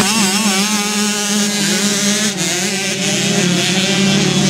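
Small two-stroke youth motocross bike engines revving, their pitch wavering up and down as bikes ride close by, then settling into a steadier drone of several bikes further off.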